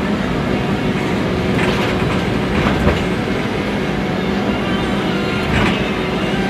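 Cabin noise of a moving Scania articulated city bus: a steady drone from the engine and the rolling wheels with a low hum, and a few short rattles and clunks of the body, a couple of seconds in and again near the end.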